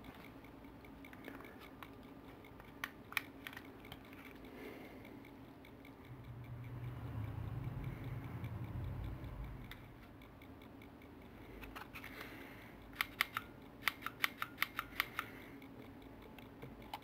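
Glock pistol's trigger clicking in dry fire, pulled again and again without racking the slide, with a piece of cardboard wedged in the ejection port. Two clicks come about three seconds in, then a quick run of about ten clicks, roughly four a second, near the end, with a low rumble in between.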